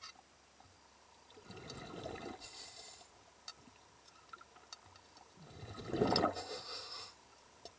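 Water swishing and bubbling around a submerged camera's waterproof housing, rising in two swells, the second and louder one about six seconds in.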